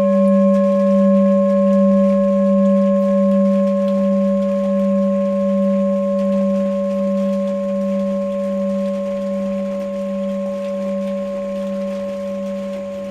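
Tibetan singing bowl ringing on after a strike, a deep tone that wavers slowly in and out with two fainter higher tones above it, gradually dying away.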